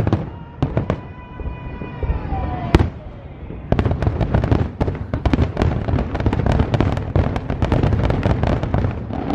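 Aerial fireworks bursting: separate loud bangs with a falling whistle-like tone between them, then from about four seconds in a dense, rapid run of booms and crackles as many shells go off together.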